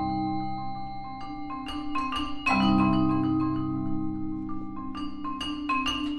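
Mallet percussion sextet of marimbas and other keyboard percussion playing: low sustained chords, a new one entering about two and a half seconds in, under scattered bright struck notes in two short runs.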